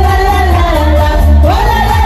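Karaoke: women singing into handheld microphones over a loud backing track with a steady bass beat, the melody held in long notes.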